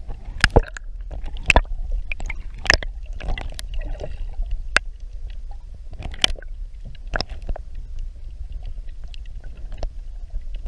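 Water splashing and slapping beside a boat, with a dozen or so sharp slaps and knocks, the strongest in the first few seconds, over a steady low rumble of wind on the microphone.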